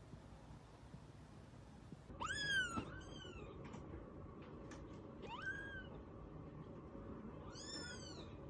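Very young kittens mewing: three thin, high-pitched mews a few seconds apart, each rising then falling, the first the loudest, over a faint steady hum.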